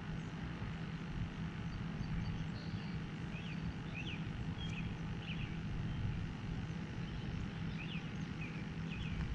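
Outdoor ambience: a steady low rumble with a faint hum. A few short bird chirps come about three to five seconds in and again near the end.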